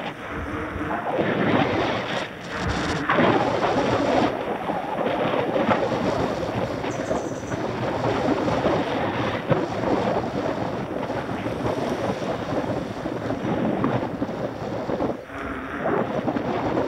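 Wind buffeting the microphone of a bike-mounted camera on a moving mountain bike: a steady, rough rush of noise with no pitch.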